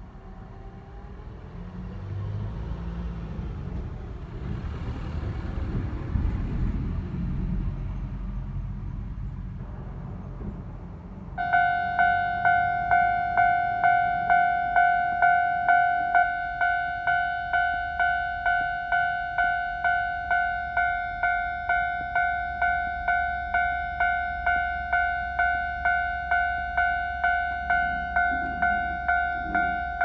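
A road vehicle passes with a low rumble that swells and fades. About eleven seconds in, a Japanese level-crossing warning bell starts: a loud electronic two-tone ding repeating about twice a second, the signal that a train is approaching the crossing.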